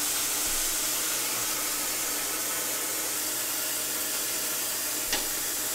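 Kitchen tap running full into the sink, water pouring into the basin as it fills: a steady rushing hiss, with a light knock about five seconds in.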